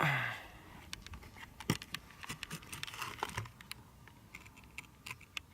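Scattered small clicks and taps of objects being handled, irregular and a few per second, with a brief rustle at the start.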